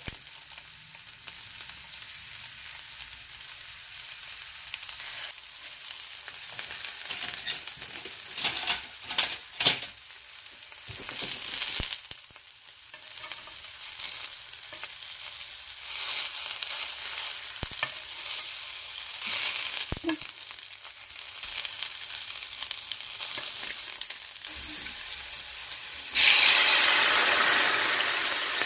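Pork meatballs sizzling in a stainless steel sauté pan, with a few sharp knocks of a spatula against the pan. Near the end a sudden loud hiss as a sake, mirin and soy sauce mixture hits the hot pan, fading slowly.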